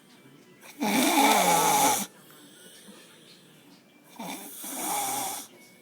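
A sleeping person snoring: two snores, the first loud, starting about a second in and falling in pitch, the second quieter near the end.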